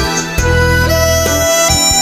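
Instrumental music: a lead melody of held notes stepping upward over a steady pulsing bass, the bass dropping out briefly just after the start.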